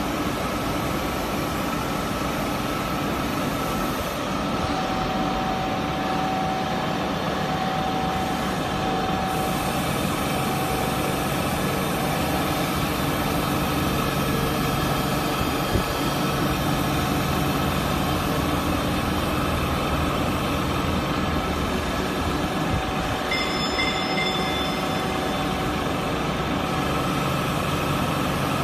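Gantry-type CNC grinding machine running as its wheel head works a workpiece on the table. It makes a steady mechanical drone with a few held whining tones, and briefly higher tones about three-quarters of the way through.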